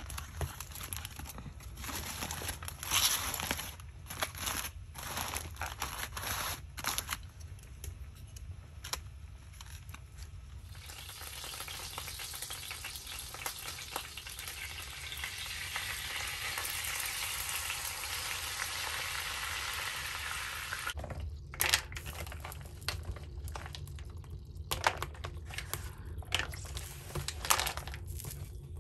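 Food frying in a pan: a steady sizzle in the middle stretch that starts and stops abruptly, with scattered clicks and crinkling of handling before and after.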